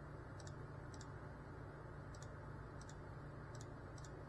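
Quiet room tone: a steady low hum with faint, short, high-pitched ticks at irregular intervals, about six of them.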